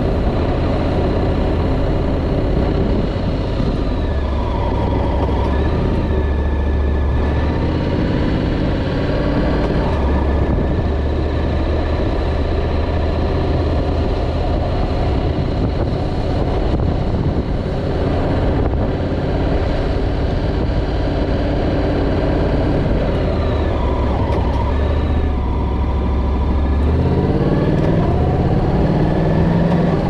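Honda NC750's parallel-twin engine running under way, with wind and road noise. Twice the engine note falls off and climbs again, and near the end it rises steadily under acceleration.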